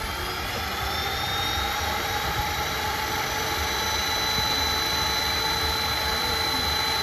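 Turbotech TP-R90 turboprop engine spooling up during start-up: a high turbine whine climbs in pitch, fastest in the first second or so, then keeps creeping up as the sound grows louder and the propeller begins to turn.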